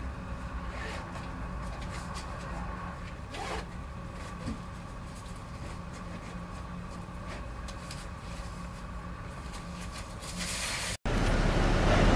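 Floatplane engine running steadily with a low hum and a faint whine as the plane skims across the water on its floats. About a second before the end the sound cuts to a louder, even rush of wind on the microphone.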